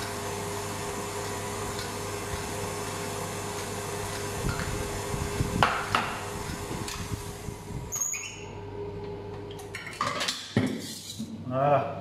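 Kitchen utensils knocking against stainless steel pots and bowls: a few sharp taps around the middle and more near the end, over a steady hum that cuts out about two-thirds of the way through.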